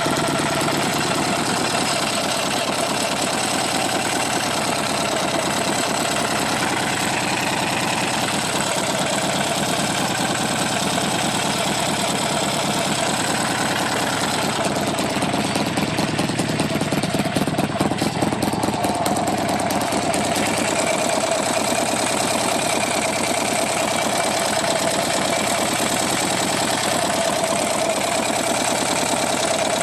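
Buell XB12R's air-cooled V-twin idling with a steady rapid ticking, an unexplained tick the owner is asking about. It runs briefly louder and rougher about seventeen seconds in.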